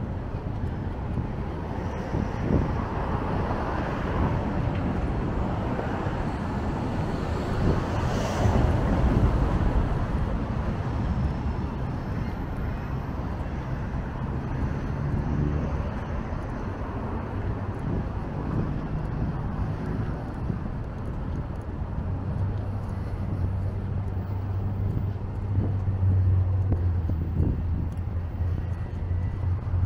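Street traffic noise from a road beside the footpath, with a vehicle passing loudest about eight seconds in. A low steady engine hum builds near the end.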